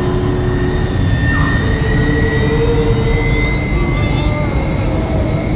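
Film sound effect of Spaceball One's engines accelerating through light speed to ridiculous speed: a loud, steady rumble with a high whine that climbs in pitch about halfway in, then holds.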